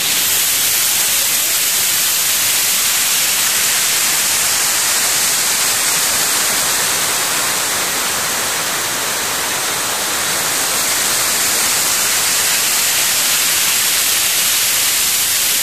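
Cascading waterfall rushing: a loud, steady hiss of falling water that dips slightly around the middle.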